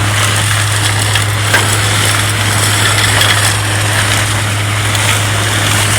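Vacuum truck running its suction: a steady low hum under a loud even rushing hiss, with one small knock about a second and a half in.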